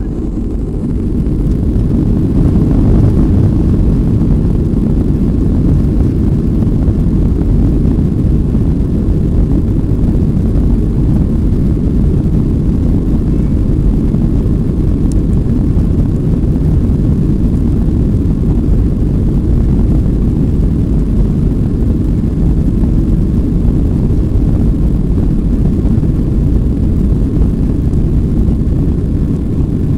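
Boeing 737-800 heard from inside the cabin over the wing as it begins its takeoff roll: its CFM56-7B jet engines spool up over the first two or three seconds, then a loud, steady low rumble as they hold takeoff thrust.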